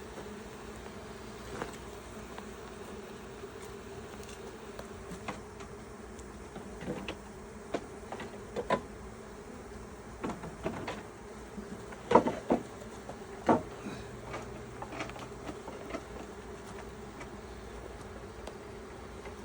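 Honeybees buzzing in a steady hum around an open hive. A cluster of sharp knocks comes midway, the loudest about twelve seconds in.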